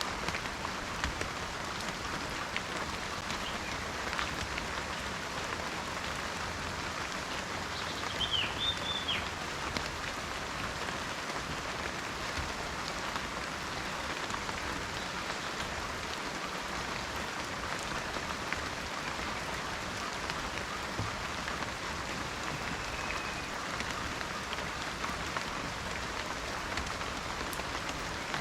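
Steady rain falling in a forest: an even hiss with many small drop ticks. A bird gives a short call about eight seconds in.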